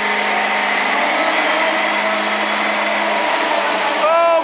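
Pickup truck doing a burnout: engine held at high revs with the rear tyres spinning, a loud steady whir of engine and tyre noise. Its steady engine tone breaks off about three seconds in, and a crowd starts whooping near the end.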